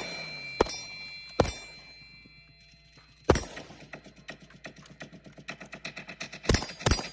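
Rifle shots from a line of shooters, about five single cracks at uneven spacing, over a music track whose fast ticking beat comes in about halfway through.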